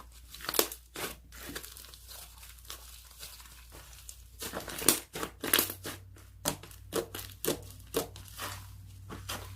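Slime being pressed and stretched by hand, making sticky crackling pops and crinkly clicks, sparse at first and coming thick and fast from about halfway through.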